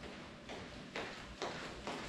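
Bare feet walking on a hard tiled floor: four steps about half a second apart, growing louder as the walker comes closer.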